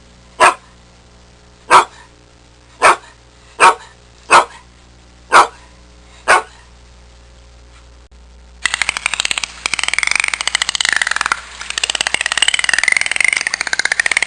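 A dog barking seven times, in single sharp barks about a second apart. About nine seconds in, a different animal call takes over: a dense, rapid pulsing rasp with a wavering pitch.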